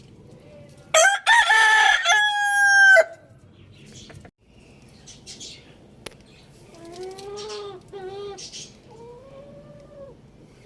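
Rooster crowing once, loud, for about two seconds. It is followed in the second half by several quieter, lower calls from chickens.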